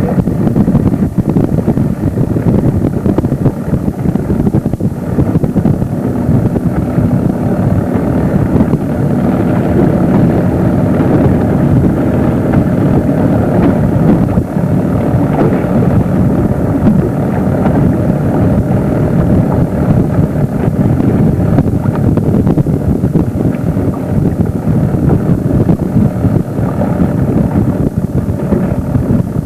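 Motorboat engine running steadily, with wind buffeting the microphone into a continuous rumble.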